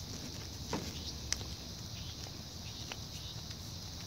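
A hand screwdriver turning a screw into a plastic ice chest hinge and lid, giving a few light clicks and creaks, one near the start, one about halfway and one near the end, over a steady high background hiss.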